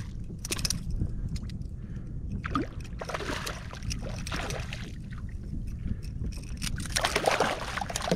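A hooked spotted seatrout thrashing and splashing at the surface beside a kayak as it is reeled in and lifted from the water, in irregular splashes that are busiest near the middle and near the end. A steady low rumble runs underneath.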